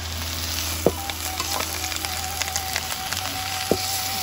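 Water spinach stir-frying in a black wok, sizzling steadily as a metal spatula scrapes and taps against the pan, with two sharper knocks about a second in and near the end.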